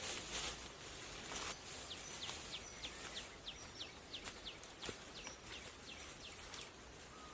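A bird calling a rapid series of short, high, falling whistled notes, about three a second, over outdoor background hiss. A few sharp scratchy rustles come in the first second or so.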